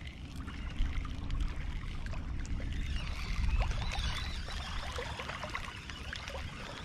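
Water lapping and trickling against a fishing boat's hull, over a steady low rumble of wind on the microphone, with scattered light clicks.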